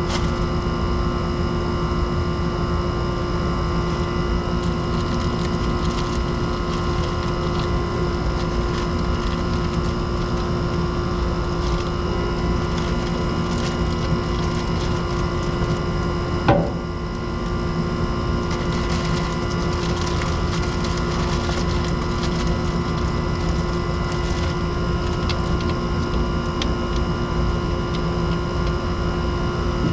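Steady machine hum with several constant tones, with a single brief knock about halfway through.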